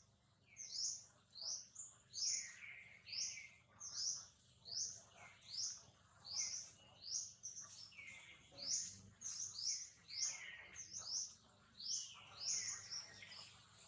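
A bird calling over and over: short, high, sweeping chirps, one or two a second, some coming in quick pairs.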